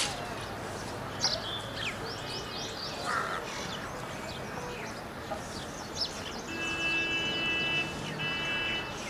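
Crows cawing among the chirps of smaller birds, with steady outdoor background noise. Near the end a steady held tone sounds for about a second and a half, then again briefly.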